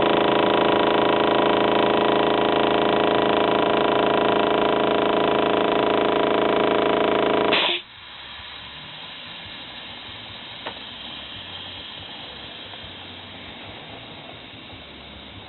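Makita MAC600 air compressor running steadily, then stopping abruptly about halfway through with a short burst of hissing air, as when the pressure switch cuts the motor out at full tank pressure. A faint hiss and a single click follow.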